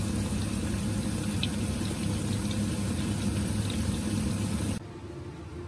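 Soaked soybeans deep-frying in a wok of hot oil: a steady sizzle with a low hum under it. The sound drops sharply near the end, leaving a quieter hiss.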